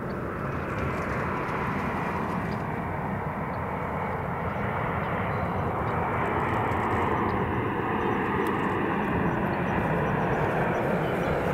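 Jet engines of a Boeing 787 airliner on landing approach: a steady rushing jet noise that grows gradually louder as the aircraft comes nearer.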